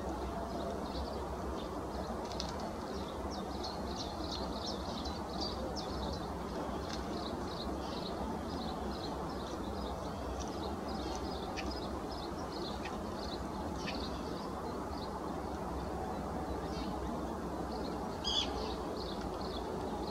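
Birds chirping: short high chirps repeated about two or three times a second, with one louder call near the end, over a steady low rumble.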